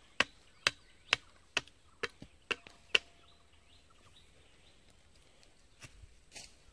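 Repeated sharp chopping blows from a hand tool, about two a second, stopping about three seconds in, with a few lighter knocks near the end.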